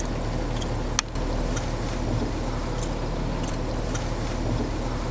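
Jeep engine running low and steady, heard from inside the cabin, with one sharp click about a second in and a few faint light ticks.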